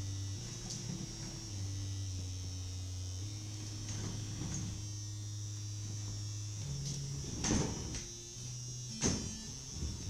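Low electronic noise drone that shifts in steps between a few steady low notes, with a thin steady high whine above it. Near the end come two sudden, louder knocks.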